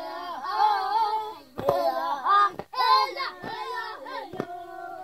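Kariri-Xocó indigenous chant sung on the vocables "Eia! Eiaá! Eiaê!" in short rising and falling phrases, with a few brief knocks between them.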